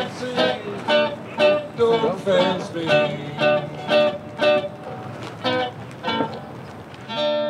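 Music: an acoustic guitar plucks a steady run of notes, about two a second, ending near the end on a chord that rings out.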